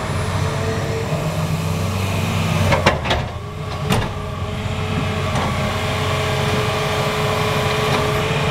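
Hitachi Zaxis 350 hydraulic excavator's diesel engine running steadily under load as the machine swings and digs into coal, with two sharp clanks about three and four seconds in.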